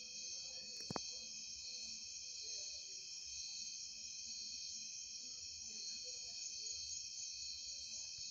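Steady chorus of night insects, several high-pitched tones held at once. A single sharp click about a second in.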